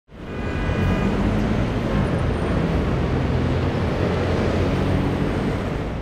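City street traffic noise: a steady low rumble of passing vehicles that fades in at the start.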